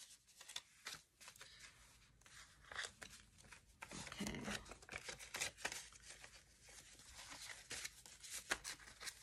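Banknotes and a paper budget envelope being handled: soft, irregular rustles and crinkles of paper with light taps.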